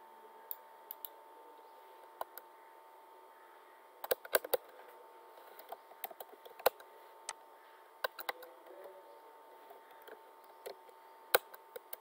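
Computer keyboard keys clicking irregularly as commands are typed, in short runs with pauses, the loudest strokes about two-thirds of the way in and near the end. A faint steady hum runs underneath.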